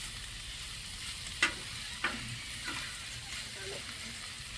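Food frying on a hot grill with a steady sizzle, and a few sharp clicks of a utensil against the cooking surface, about one and a half, two and two and a half seconds in.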